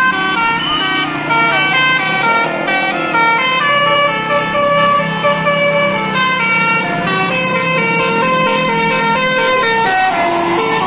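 Tour bus's roof-mounted basuri telolet air horn playing a fast, jumping melody of held notes, with the bus's engine running underneath.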